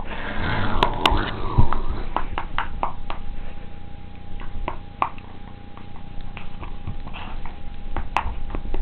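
Jack Russell terrier chattering its teeth: irregular sharp clicks, with a noisy rush in the first second and a half.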